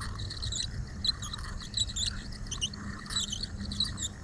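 Outdoor ambience: many short, high chirps at irregular intervals over a low, steady background rumble.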